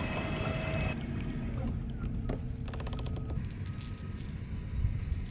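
Fishing tackle handled by hand at the rod while changing a lure: small rattles and clicks, with a quick run of rapid clicks about two and a half seconds in.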